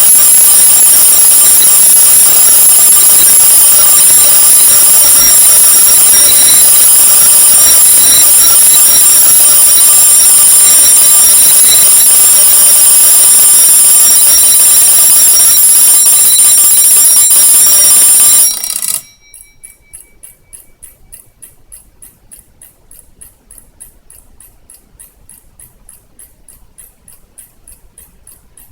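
Bell of a Showa-era Seiko Corona wind-up alarm clock ringing loudly and continuously, cutting off suddenly about eighteen seconds in. After it stops, the clock's mechanical movement ticks quickly and quietly.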